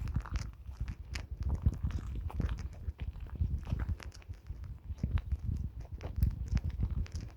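Footsteps on a forest path with rustling handling noise close to the microphone, an irregular run of low thuds and scuffs.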